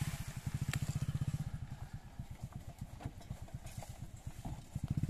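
Single-cylinder Lister-type diesel engine of an 8 hp borewell water pump set, running with a steady, low, rhythmic exhaust beat. The beat is loudest for the first second or so and again near the end.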